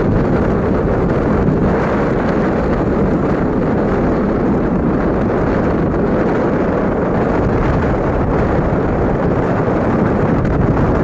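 Airliner's engines at takeoff power, heard as a loud, steady rumble, with wind buffeting the microphone.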